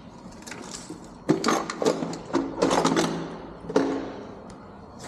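Power drill run in several short bursts against a jammed door latch, with metallic clicks and rattles between the bursts.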